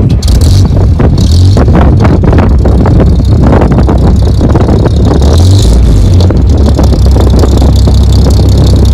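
Exhaust of a Bedford RLHZ Green Goddess fire engine's six-cylinder petrol engine running, heard right at the tailpipe: a loud, deep exhaust note that swells briefly about a second and a half in and again around five and a half seconds in.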